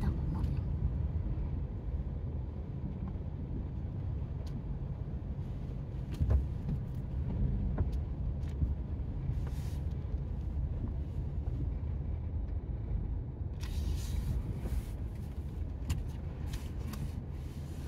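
Car driving slowly, heard from inside the cabin: a steady low rumble of engine and tyres, with a few light clicks, a thump about six seconds in, and a brief hiss near the end.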